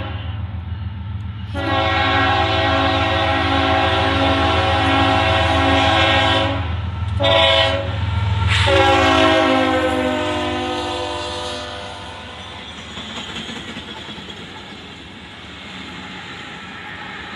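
Freight train's lead CSX diesel locomotive sounds its horn as it passes: a long blast, a short one, then another long one, the close of the long-long-short-long grade-crossing signal. The last blast drops in pitch as the locomotive goes by. After that the engines' drone gives way to the wheels of the trailing locomotives and cars rolling over the rails.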